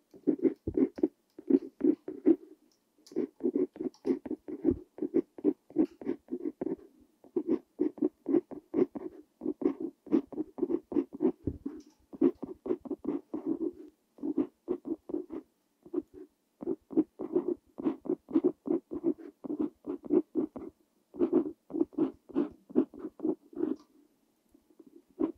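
Steel nib of a Parker Jotter fountain pen scratching across paper, writing Korean characters in quick short strokes, the strokes coming in clusters with brief pauses between words.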